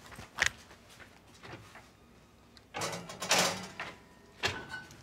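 Kitchen oven door being handled: a sharp click about half a second in, a longer clattering, rattling stretch around three seconds in, and another click near the end.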